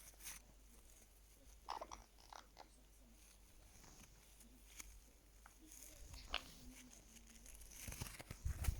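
Caique parrot's quiet scattered clicks and nibbling, with a couple of short squeaks, and a few low bumps near the end.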